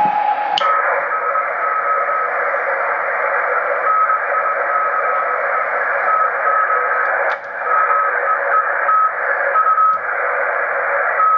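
Morse code (CW) from an amateur station on the 80-metre band, heard through a modern ham transceiver's speaker: a keyed beep of dots and dashes over steady band hiss, spelling out "nice to meet you". A click sounds just after the start as the antenna is switched over to this rig.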